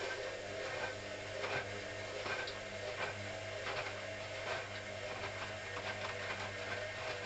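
Hoover CA232 washing machine running its wash cycle: a steady motor hum with a regular tumbling stroke about every three-quarters of a second as the drum turns the laundry.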